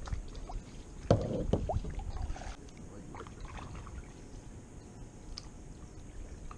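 Water splashing and gurgling, loudest for a second or two about a second in, over a steady low rumble of wind and moving water.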